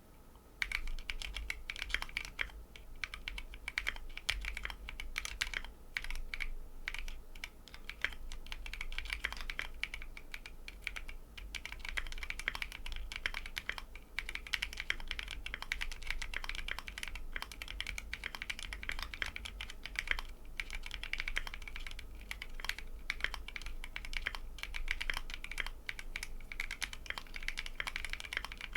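Typing on a mechanical keyboard with lubed Tecsee Coral tactile switches and ASA-profile double-shot PBT keycaps (ASA Macaw): a fast, uneven stream of key clacks that starts about half a second in.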